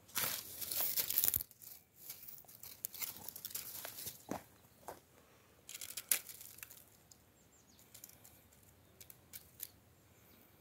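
Dry dead grass and brittle stems rustling and crackling as they are pushed aside and brushed against, in several bursts: the loudest in the first second and a half, again around three to four seconds and about six seconds in, then only a few light crackles.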